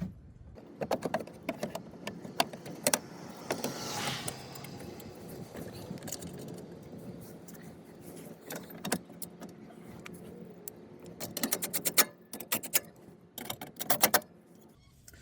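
The underbody cover of a Mercedes GLA250 being fitted back on: scattered clicks, knocks and rattles of the panel and its fasteners, with two quick runs of clicking near the end.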